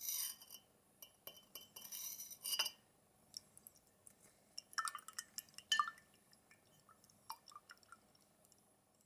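Scattered small clicks and taps of hard objects, with a few short ringing clinks about five to six seconds in.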